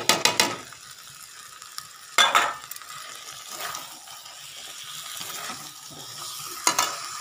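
A metal spatula knocks and scrapes against a metal kadai while a thick masala of potatoes, peas and paneer sizzles steadily as it is stir-fried. There are a few quick knocks at the start, another group about two seconds in and one more near the end.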